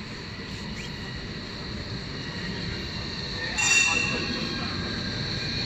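Yellow Berlin tram passing along the street, its steel wheels squealing on the rails in a steady high tone that grows louder, with a brief louder high screech about three and a half seconds in.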